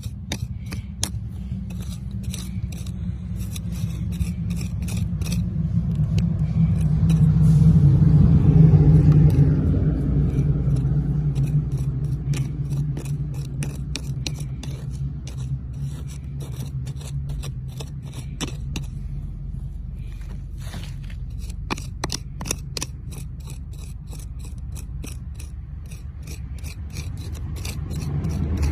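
A small hand tool scraping and picking at dry, packed soil in quick, irregular scratches, over a steady low rumble that swells about eight seconds in.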